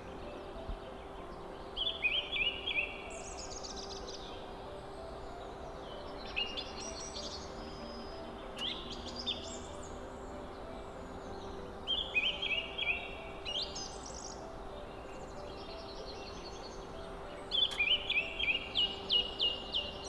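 A songbird singing short phrases of quick chirps every few seconds, the last phrase near the end the loudest, over a steady faint low hum.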